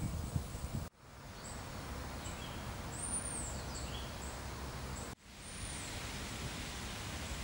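Outdoor park ambience: a steady rustling breeze with small birds giving high, thin chirps several times. The sound cuts out abruptly about a second in and again about five seconds in, each time fading back up.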